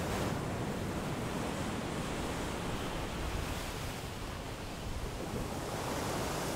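Rough sea water churning and rushing past a ship's hull, with wind: a steady, even rush of noise.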